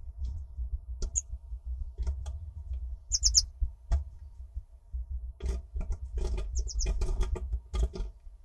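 Eurasian blue tit at a wooden nest box's entrance hole, giving short high chirps with a quick run of notes about three seconds in. Its claws scratch and tap on the wood, most busily in the second half, over a low rumble.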